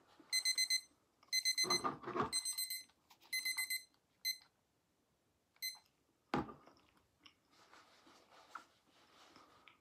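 Digital countdown timer alarm beeping at zero in repeated quick bursts of high beeps, signalling that the 10-minute eating time is up. The beeping stops about six seconds in, followed by a single knock as the timer is handled.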